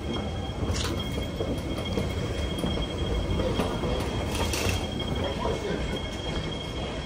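Airport moving walkway running: a steady low rumble with a faint high whine, and a couple of short clatters about a second in and again around four and a half seconds in.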